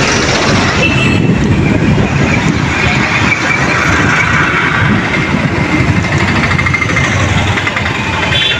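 Busy road traffic: a multi-axle lorry rolling past close by amid motorbikes and other engines, a steady din of engine and tyre noise. A brief high tone sounds near the end.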